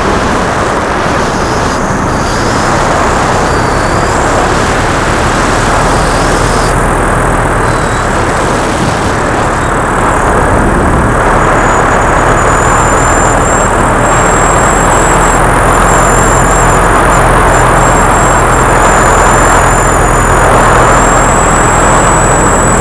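Paramotor in flight: the backpack engine and propeller running steadily under heavy wind rush on the microphone, getting a little louder about halfway.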